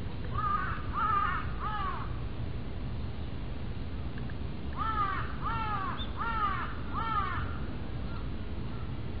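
Crow cawing: a run of three harsh caws, a pause of about three seconds, then four more.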